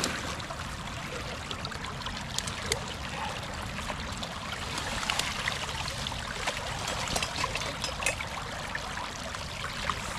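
Shallow creek running fast and steady around a wading trapper's legs and a snag of debris, with occasional brief clicks and small splashes as the trap and debris are pulled up out of the current.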